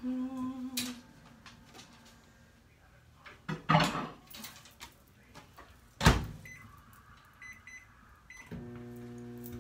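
Over-the-range microwave oven being loaded and started: a dish clatters inside, the door shuts with a bang, the keypad beeps several times, and near the end the oven starts its steady running hum, set for another three minutes of cooking.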